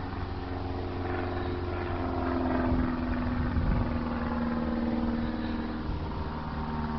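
An engine running steadily, with a slight rise in pitch about two seconds in.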